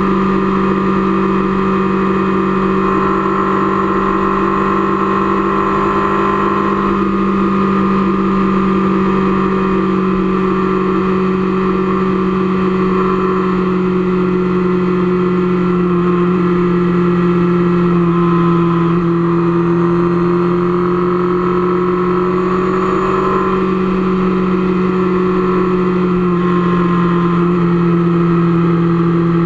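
Motorcycle engine running at a steady highway cruise, heard from the rider's seat. Its pitch holds nearly constant and dips slightly near the end.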